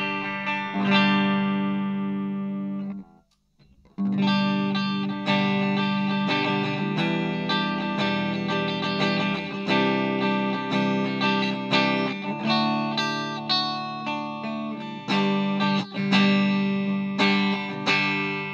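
Gibson SG Standard electric guitar played through a Marshall MG10CF practice amp on its clean channel, contour EQ at the middle. Chords are struck and left to ring, with one abrupt stop about three seconds in before the playing resumes.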